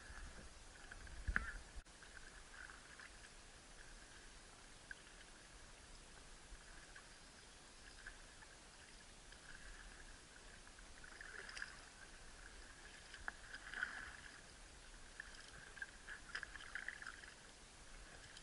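Quiet paddling of an inflatable kayak on calm water, with soft paddle splashes and drips now and then over a steady high-pitched chirring in the background. A thump comes about a second in.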